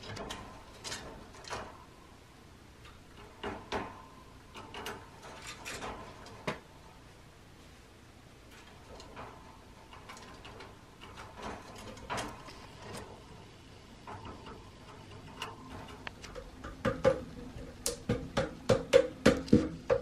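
Pet crows and a magpie tapping and pecking with their beaks and shuffling their feet on wire and wooden perches: scattered sharp clicks and taps, then a rapid run of louder taps, about five a second, near the end.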